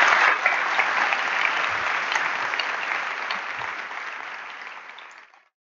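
Audience applauding, the clapping loudest at first and then gradually fading away until it stops about five seconds in.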